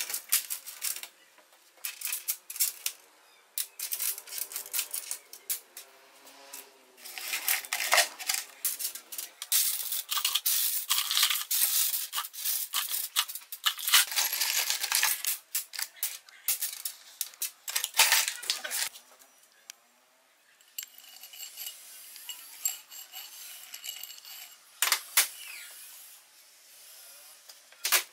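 Loose steel nuts, washers and bolts clinking and rattling against each other as they are picked through and slid around by hand on a workbench, with many sharp metal clicks and some scraping.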